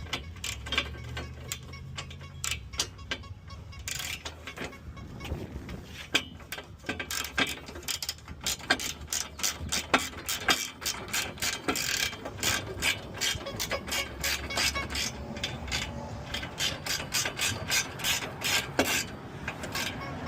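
Hand ratchet wrench clicking as a fastener is driven, in quick irregular runs of clicks that get faster and denser partway through.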